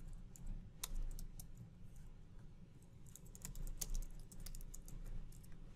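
Typing on a computer keyboard: scattered key clicks, with a quicker run of keystrokes about three to four seconds in, over a low steady background hum.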